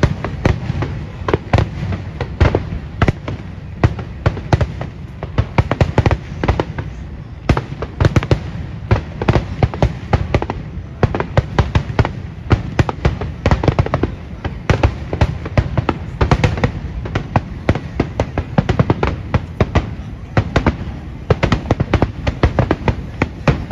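Aerial firework shells bursting in a dense, unbroken barrage, many loud bangs a second overlapping one another.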